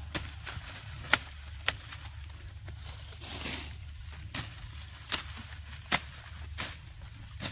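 Irregular sharp snaps or cracks, about six spread over several seconds, the loudest a little after a second in, with a brief rustle midway and a steady low hum underneath.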